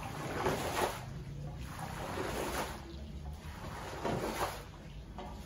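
Squeegee pushed in strokes through a soaked shag rug, squeezing out foamy dirty water: a wet swish with each stroke, about three strokes in all.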